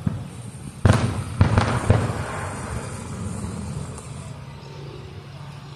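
Aerial fireworks shells bursting: a sudden bang about a second in, then two more about half a second apart, followed by a long fading rumble.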